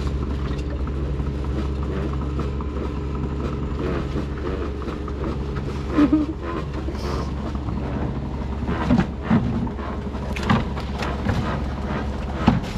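Old Hero Honda motorcycle's single-cylinder engine running steadily as the winch that hauls the Chinese fishing net up and down. Several short knocks in the second half.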